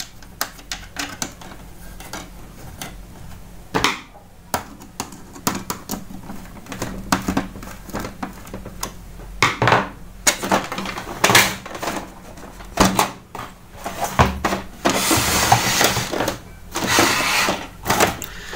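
Plastic clicks, knocks and clatters from an Epson L380 ink tank printer's housing being handled and closed up after the pickup roller repair, with a longer stretch of rustling noise near the end.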